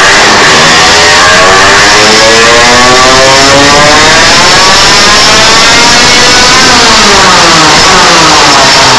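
Derbi Senda 50's two-stroke engine, fitted with an Airsal 70cc cylinder and a Radical Midrace expansion-chamber exhaust, revving very loud: its pitch climbs steadily for about six seconds, then drops away over the last few seconds.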